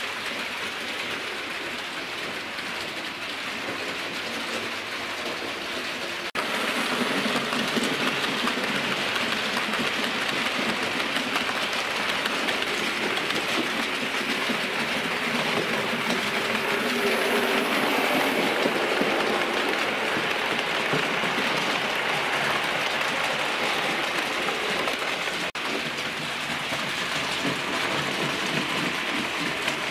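Hornby OO gauge A4 model steam locomotives hauling carriages around a model railway, a steady running noise of wheels on the rails and the small motors. It grows louder about six seconds in.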